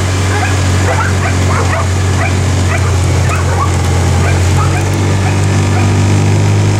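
A dog yipping and whining in many short, high, rising calls, most of them in the first four seconds or so, over the steady low hum of the vehicle's engine.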